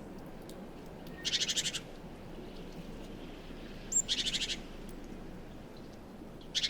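Great tit giving three short, harsh rattling calls, each about half a second long and about two and a half seconds apart, the middle one led by a brief high note.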